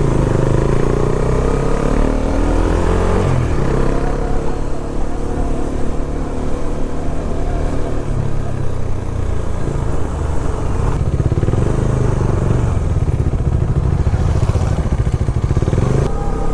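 Motorcycle engine running while riding, its pitch rising and falling with throttle and gear changes over the first few seconds, then holding steadier.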